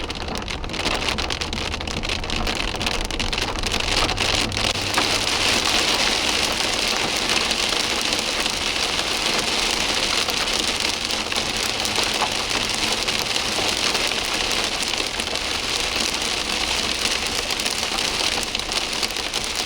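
Heavy rain pouring down, a dense steady hiss that grows a little louder about four seconds in.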